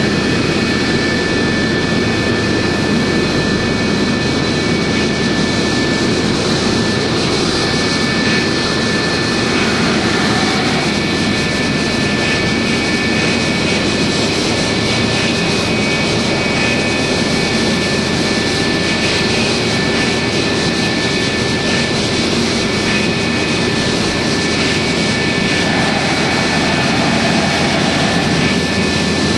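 Lockheed F-104 Starfighter's J79 turbojet running at a steady setting while the jet moves out for departure: a constant roar with a steady high whine over it.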